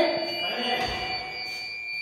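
Fire alarm sounding a continuous high-pitched electronic tone, not yet silenced after a detector was set off during testing.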